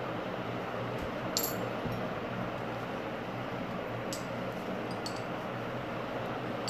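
Silver coins being wiped with a cloth and set down on a towel, giving three faint short clinks over a steady background hiss.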